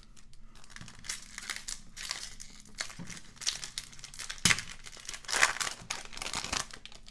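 A foil trading-card pack being torn open and crinkled by hand, with two sharper, louder rips about a second apart, starting about four and a half seconds in.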